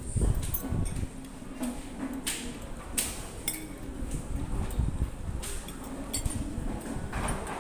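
Spoon and fork clinking and scraping against plates while eating, in scattered, irregular clicks.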